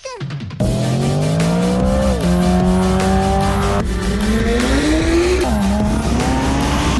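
Yamaha MT-03 with a full aftermarket exhaust accelerating hard. The engine note climbs, drops at gear changes twice, then holds a steadier pitch near the end.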